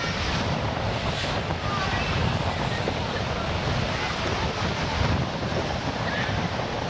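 Muddy floodwater rushing and churning along a kerb during a torrential storm, a steady wash of water noise, with wind buffeting the microphone.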